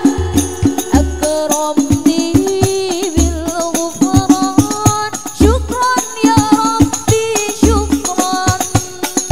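Al-Banjari sholawat: a group of women singing a melody together over hand-played rebana frame drums, with a busy pattern of slaps and a deep bass drum stroke every second or two.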